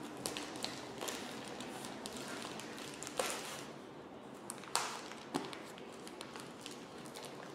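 Heavily taped packaging being worked at by hand to get it open: a rustling, scraping handling noise, broken by sharp snaps and taps, the loudest about three and five seconds in.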